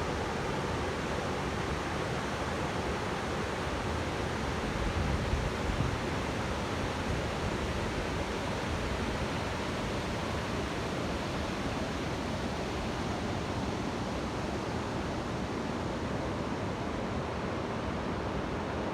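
Waterfall rushing: a steady, even roar of falling water, with a brief low swell about five seconds in.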